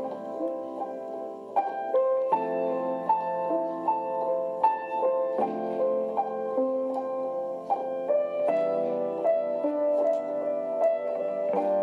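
Background music led by piano: a flowing instrumental passage of struck, sustained notes, without vocals.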